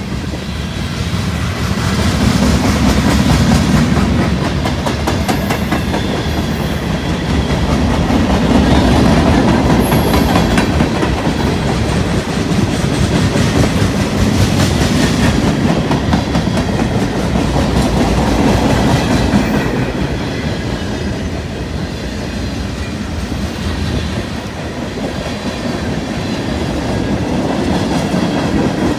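Freight train rolling past, its wheels clattering steadily over the rail joints, the sound swelling and easing every few seconds.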